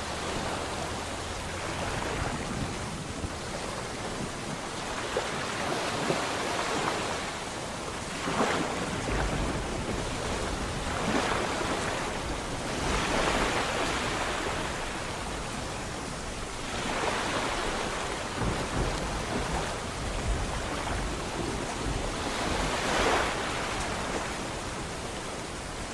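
Sea waves breaking and washing in, the surf swelling and easing every few seconds over a steady rush of water.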